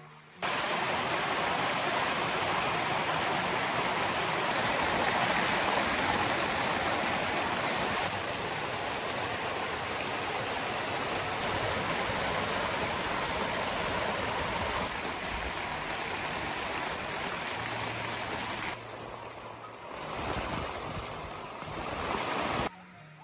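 Heavy downpour of rain: a loud, even rushing hiss that cuts in abruptly and cuts off just before the end.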